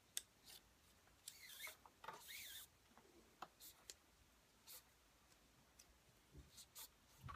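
Faint rustling and scraping of cord being threaded and pulled through a knot on a plastic mandrel, with scattered small clicks and a longer scratchy rasp about two seconds in.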